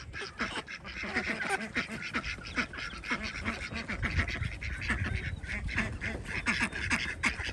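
A flock of domestic ducks quacking over one another, short repeated calls, with a low rumble underneath.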